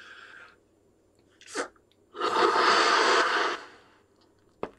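A man breathes in deeply, then gasps in once more. He blows one long, hard breath into a party balloon for about a second and a half, filling it in a single lungful. A short click comes near the end.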